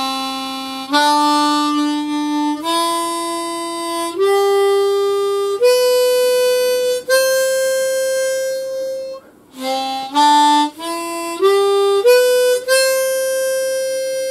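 Aria AH-10 ten-hole diatonic harmonica played as clean single notes without bends, climbing one note at a time through its low octave. Six notes of about a second and a half each come first. Then the same climb is played again more quickly and ends on a long held top note.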